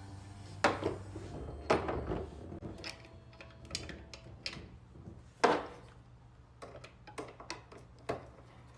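A series of sharp knocks and clatters of hard objects being handled, about a dozen, irregular, the loudest about a second in and again around the middle.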